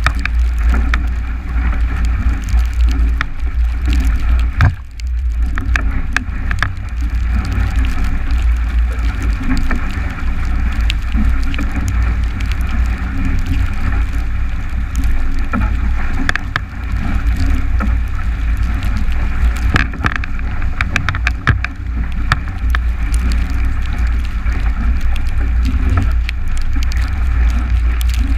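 Strong wind buffeting the microphone of a GoPro on a 29er skiff sailing fast in heavy air, over the rush of water along the hull. Scattered sharp ticks of spray hit the camera, and the noise drops briefly about five seconds in.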